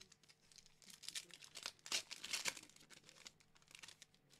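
Foil booster-pack wrapper crinkling and tearing as a Pokémon card pack is opened by hand: a run of soft crackles, loudest about two seconds in.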